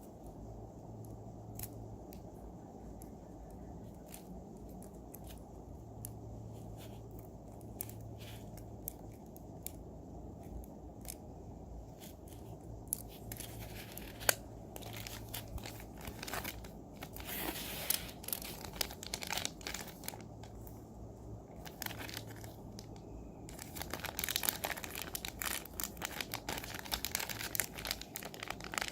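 Packaging being handled and unwrapped: scattered light clicks and rustles in the first half, then bursts of crinkling and tearing from about halfway, densest near the end.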